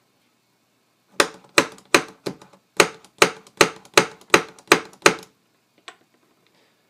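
Rapid sharp taps of a pin punch striking a pin in a plastic action-figure wrist joint, driving the pin out: about eleven strikes at roughly three a second, then one faint tap.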